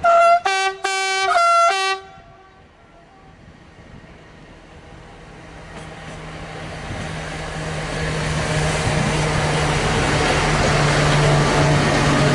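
Two-tone horn of twin SNCF BB 67400 diesel locomotives sounding a series of short blasts that alternate between two notes for about two seconds. The locomotives' diesel engines and the coil train's wheels then grow steadily louder as the train approaches.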